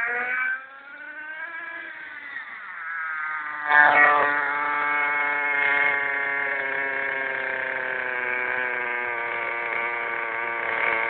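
Small nitro engine of a 1/10-scale RC monster truck running, its pitch wandering up and down at first. About four seconds in it revs up sharply to a loud, steady high-pitched buzz.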